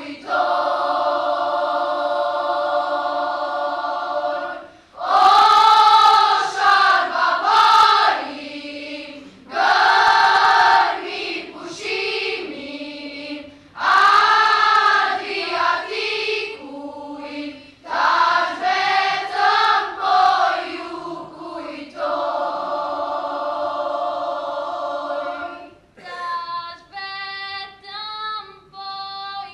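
A girls' choir singing in chorus, long held chords alternating with moving, phrased passages. Near the end the sound thins to shorter, separate notes.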